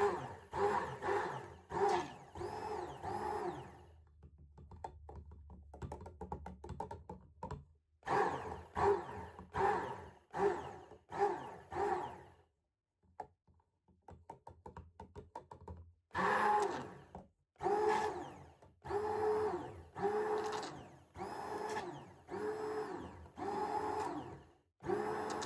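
Handheld stick blender pulsed in short bursts of about half a second, each a brief motor whine, in three runs of several pulses with pauses of a few seconds between them and faint clicks in the pauses. It is emulsifying the hot oil and water phases of a light lotion in a glass jug, using short bursts so as not to over-blend.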